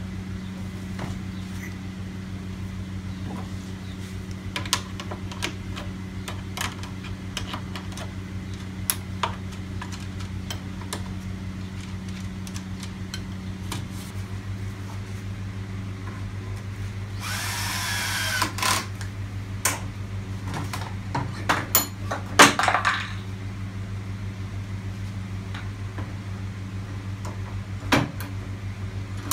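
Steady low hum with scattered clicks and knocks as the angle grinder in a wooden sharpening jig is handled and tilted on its pivoting mount. A short scraping, rustling stretch comes about two-thirds of the way in.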